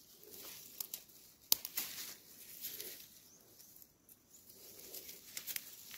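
Leaves and fern fronds rustling as a hand pushes through undergrowth and grabs at a leaf, with scattered light clicks and one sharp click about one and a half seconds in.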